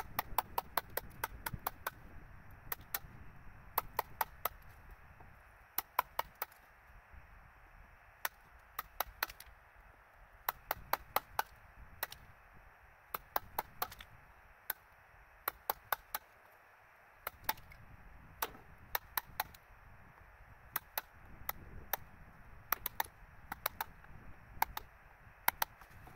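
Hammer striking a chisel into wood: sharp knocks in quick clusters of two to five blows, repeated over and over.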